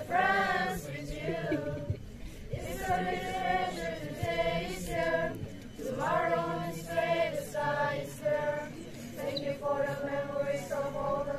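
A group of girls and boys singing a song together from song sheets, their voices holding long notes, one of them held for a couple of seconds near the end.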